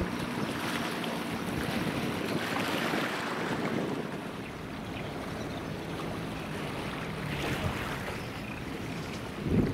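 Water rushing and splashing in the bow wave of a passing container ship, with wind on the microphone and a low steady hum during the first few seconds. A short dull thump near the end.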